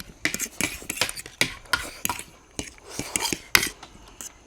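Metal spoons or forks clinking and scraping against plates at an irregular pace as people eat.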